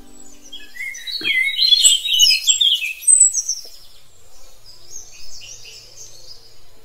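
Birds chirping and singing: a burst of rapid, varied high calls in the first three seconds, then fainter calls.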